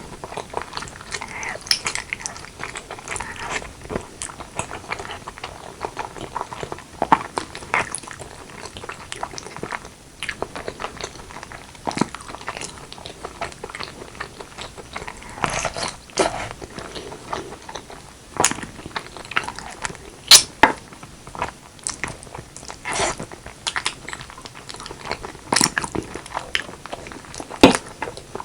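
Close-miked mouth sounds of eating braised pork leg with rice: wet chewing and smacking with irregular sharp clicks and occasional crunches.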